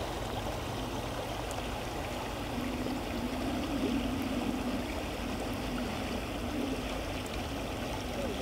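Shallow river water running steadily over a rocky bed. A low, steady hum joins about two and a half seconds in.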